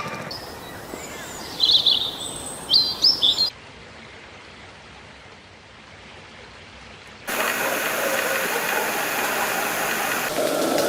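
Birds chirping: two short clusters of high, quick calls, then an abrupt change to quiet background hiss, and from about seven seconds in a louder steady outdoor noise.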